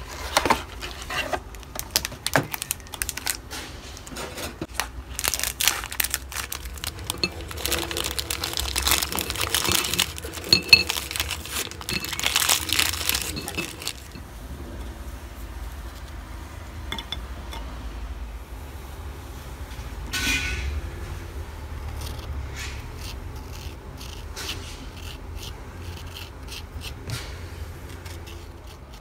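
Plastic wrapper of a sleeve of Oreo cookies crinkling as it is handled and opened, dense and crackly for about the first half. After that come quieter scattered clicks and scrapes as the cookies are twisted apart and the cream is scraped off over a glass bowl, over a steady low hum.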